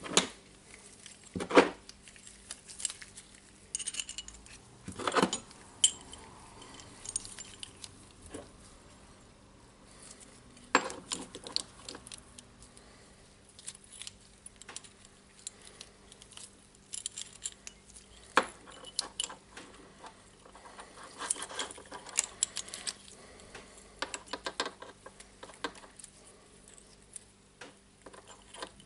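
Irregular light metallic clicks and clinks of small steel parts being handled: an impact driver's hammer, spring and hex key knocking together as the hammer assembly is fitted into a puller to press the hammer down. The sharpest clinks come about a second and a half in and at about five seconds.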